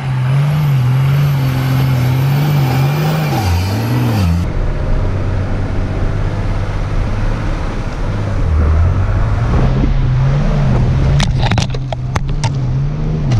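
Off-road 4x4's engine working hard under load as it climbs a steep, muddy hill, revs holding and dipping. About four seconds in the sound changes to a camera fixed to the car's side, and near the end a few sharp clicks ring out.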